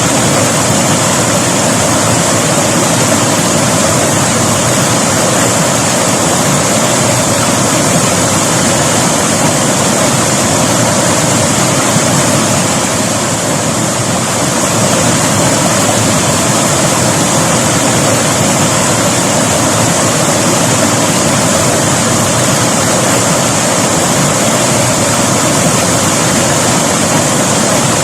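River water flowing with a loud, steady rush, easing slightly for a moment about halfway through.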